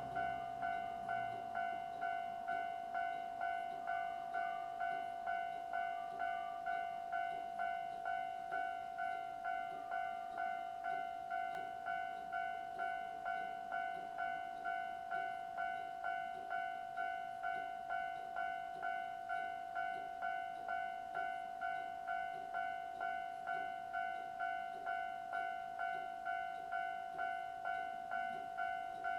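Japanese railway level-crossing alarm from a Toho Denki electronic crossing alarm sound generator, ringing its repeated 'kan-kan' tone at about two strikes a second, each strike sharp at the onset and fading quickly. Its volume is turned down by an attenuator in the equipment box.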